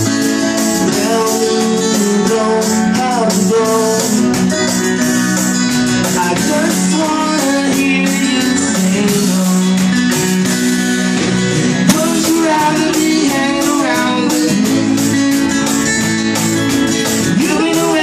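A rock band playing live: acoustic guitar strumming over bass guitar and drums, with a single sharp knock about twelve seconds in.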